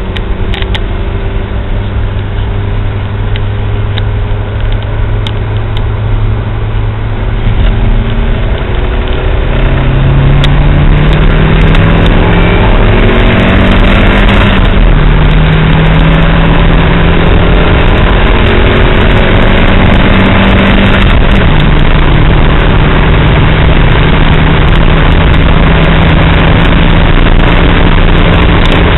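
Hyundai S-Coupe GT's four-cylinder engine heard from inside the cabin during a 60–120 km/h acceleration run: a steady engine note at first, then about ten seconds in it gets louder and the note climbs, breaking briefly a couple of times, over rising road and wind noise.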